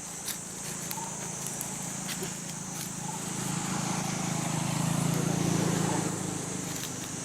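A motor vehicle's engine humming, growing louder toward the middle and easing off again, over a steady high-pitched insect drone, with a few light clicks.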